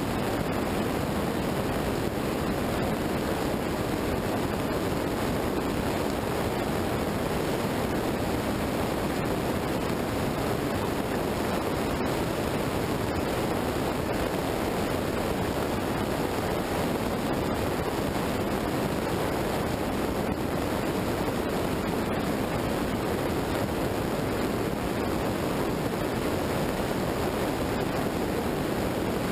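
Steady rushing wind noise on an action camera's microphone at road speed, mixed with tyre noise on wet tarmac; no engine note stands out.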